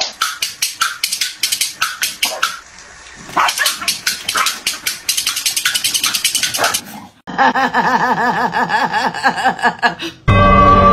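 Two corgis fighting, with rapid, sharp barking and snarling in quick bursts for about seven seconds. After that a wavering tune plays, and a loud steady tone starts near the end.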